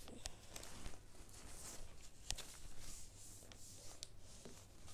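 A sheet of paper being folded and its creases pressed flat by hand: faint rustling and sliding, with a few sharp little clicks and taps.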